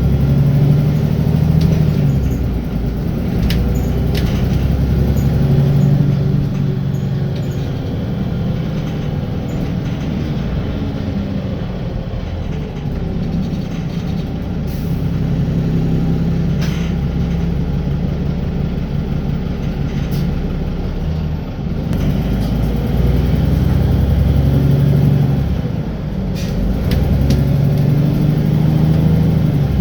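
Wright Gemini 2 double-decker bus on a VDL DB300 chassis, heard from inside while under way. The engine note rises and falls as the bus pulls away and slows, with a few sharp clicks here and there.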